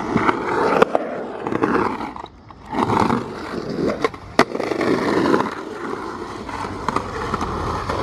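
Skateboard wheels rolling on concrete, with sharp clacks of the board striking the ground about one second and about four and a half seconds in as the skater pops and lands a trick.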